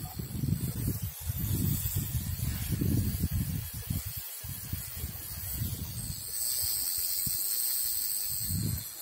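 Wind buffeting the microphone in uneven gusts, then a steady high hiss for about the last three seconds that cuts off just before the end.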